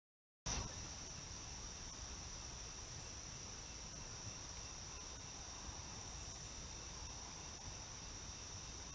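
A steady chorus of crickets trilling in the night, one high unbroken pitch with fainter lower bands, starting about half a second in after a moment of silence.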